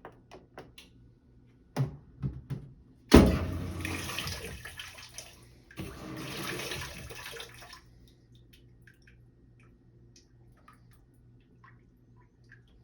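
A few clicks from a GE stackable washer's controls as a drain-and-spin cycle is set, then two bursts of water noise from the undrained tub about three and six seconds in, the first starting suddenly and louder. The washer is full of water that it will not drain.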